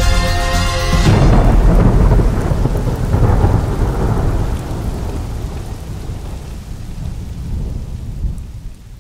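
Music cuts off about a second in, giving way to a long rolling rumble of thunder over steady rain that slowly fades.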